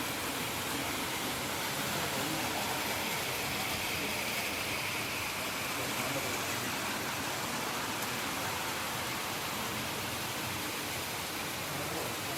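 Model train running on its track: a steady rushing noise that swells a little in the middle, with faint voices of people in the hall.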